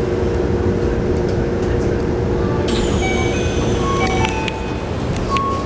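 Keikyu New 1000 series train standing at a station with a steady electrical hum from its equipment; about three seconds in, a sudden hiss of released air starts, along with a string of short beeping tones at changing pitches.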